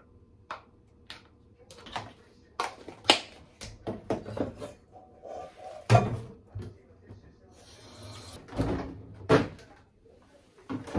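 Kitchen handling sounds: a plastic rice paddle and plastic food containers clicking and knocking as cooked rice is scooped out of a rice cooker, a short spell of running tap water as the cooker's inner pot is rinsed at the sink, and a freezer drawer being opened near the end.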